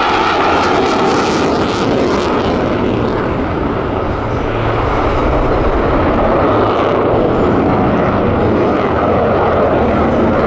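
Loud, steady noise of a U.S. Navy F-35C Lightning II's Pratt & Whitney F135 jet engine at high power, just after a high-speed pass close to the speed of sound.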